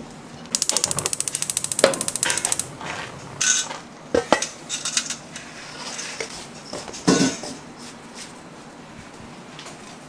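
Stainless steel bowls and a metal sieve clattering as they are handled. A quick, even rattle lasts about two seconds, followed by several separate metal clanks.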